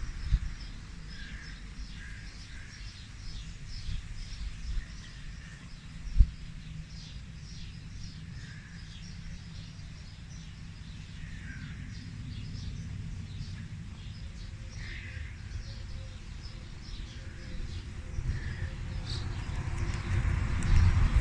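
Birds chirping in the background, many short high chirps with a few lower calls between them, over a low rumble. A single sharp knock about six seconds in.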